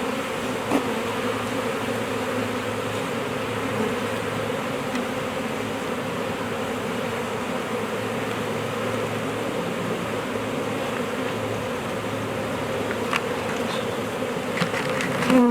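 Huge swarm of honeybees buzzing in a steady, dense hum, the bees stirred up after being shaken out of a bush into a box.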